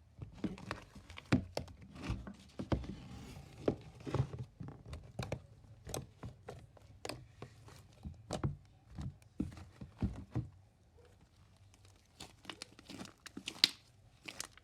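Homemade slime being mixed and kneaded by hand: a run of sticky clicks and pops as it is folded and pulled apart, thinning out after about ten seconds.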